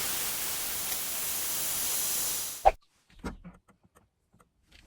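Compressed air venting from a military truck's air system in a steady loud hiss, which cuts off abruptly with a sharp knock nearly three seconds in. A few faint clicks follow.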